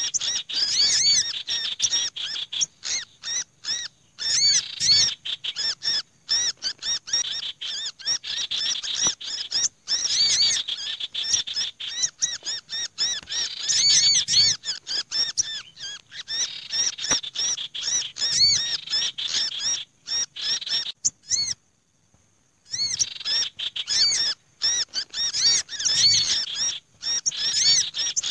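Bird-lure recording of small birds calling in a dense, busy mix of fast high chirps and trills. It layers a sirtu's rattling 'ngekrek' call, an olive-backed sunbird's noisy chattering and a black-naped monarch's 'kejepit' call, the alarm of a bird caught or pinched, which is meant to draw wary small birds down. The calling breaks off briefly about three-quarters of the way through.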